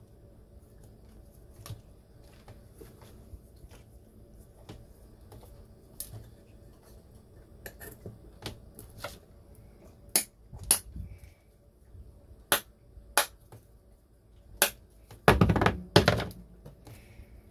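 Clicks and knocks of small objects being handled and set down on a wooden floor: wooden mixing sticks and a small metal can. They come sparsely at first, grow louder and more frequent about ten seconds in, and end in a louder cluster of knocks near the end.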